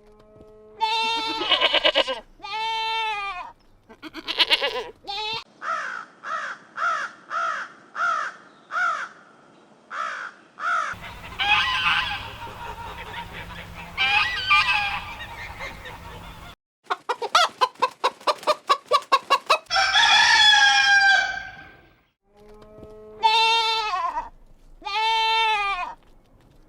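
Chickens calling across several short clips joined by abrupt cuts: hens clucking in short repeated calls, a rapid run of cackling, and a rooster crowing.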